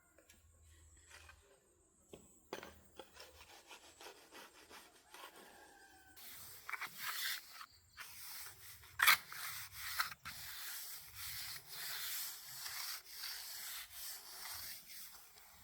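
Wood being rubbed or sanded by hand in repeated scraping strokes. A few light taps come first; the steady rubbing starts about six seconds in, with a sharp knock about nine seconds in.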